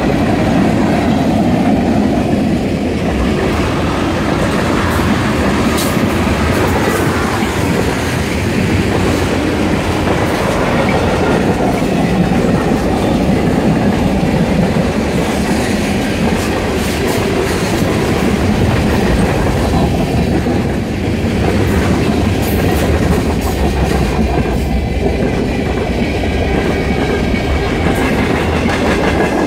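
Canadian Pacific freight train's cars rolling past: a steady rumble of steel wheels on rail, with sharp wheel clicks now and then.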